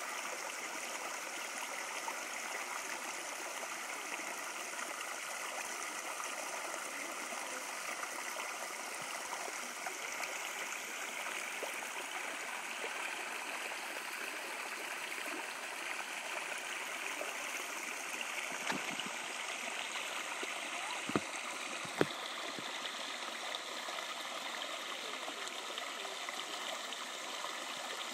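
Shallow rocky creek running steadily over stones and a small cascade, a continuous rushing babble. Several brief sharp knocks stand out about two-thirds of the way through.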